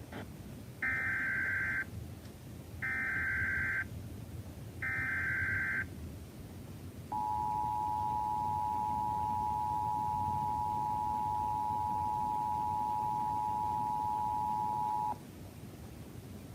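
Emergency Alert System activation tones: three one-second bursts of SAME header data, each about a second apart, then the two-tone attention signal, a steady dual tone at 853 and 960 Hz held for about eight seconds before cutting off.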